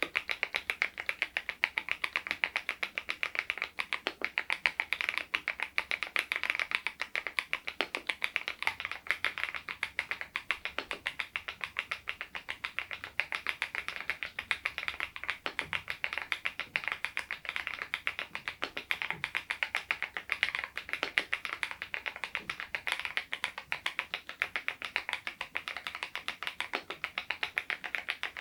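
Continuous typing on an SPM PL108W full-size mechanical keyboard fitted with Baby White switches: an unbroken run of quick keystrokes, several a second, with no pauses.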